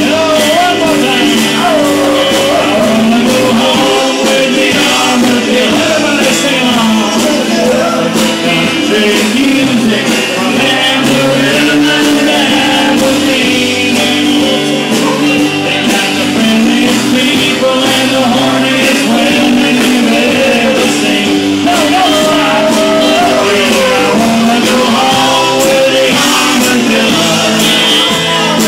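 Live band playing a country-rock tune, with acoustic guitar, drum kit and congas.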